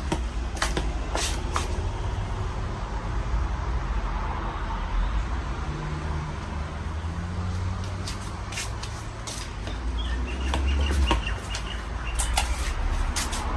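Casablanca Panama ceiling fan running: a steady low hum with scattered clicks.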